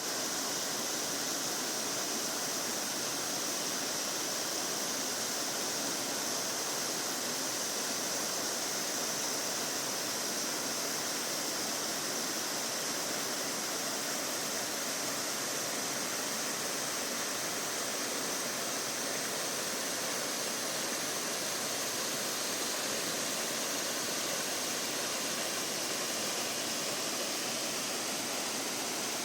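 Waterfall in full spate: water pouring down and striking rock, a steady, unbroken rush.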